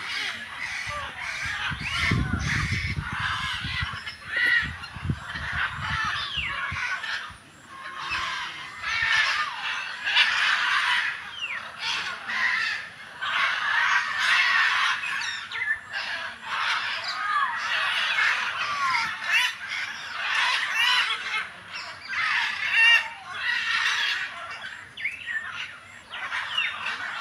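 Many birds calling at once: a dense, unbroken chatter of short rising and falling calls, with a low rumble on the microphone about two to seven seconds in.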